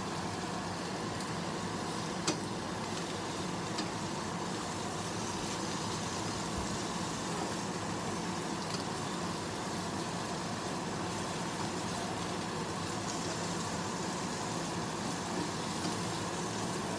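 Butternut squash, okra and onion sizzling steadily in a stainless steel frying pan while being turned with a wooden spatula, with a sharp knock of the spatula on the pan about two seconds in and a few lighter taps after.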